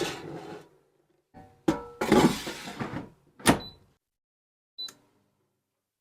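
Cooking sounds in short edited snippets: brief handling noises, a click, and a sharp knock about three and a half seconds in, each cut off into dead silence.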